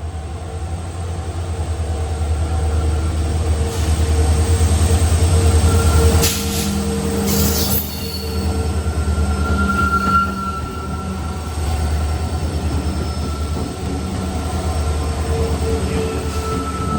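A train running past on the track: a heavy low rumble with fast rhythmic wheel clatter, loudest a few seconds in, and a thin metallic wheel squeal that rises about ten seconds in.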